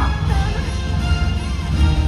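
Loud show soundtrack music with sustained tones over a heavy, steady low end.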